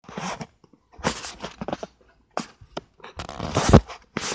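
Rustling, rubbing and bumping noise from a handheld phone being moved about, coming in irregular bursts. The loudest burst, with a low rumble, comes a little past three seconds in.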